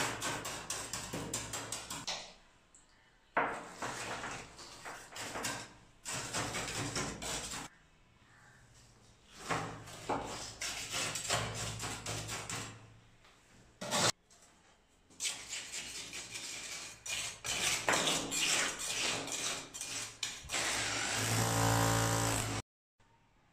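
A steel trowel scraping and dropping wet concrete among steel rebar in a slab form, in several bursts of scrapes and knocks. Near the end an electric drill fitted with a steel rod runs steadily for about two seconds, vibrating the wet concrete to settle it, then cuts off suddenly.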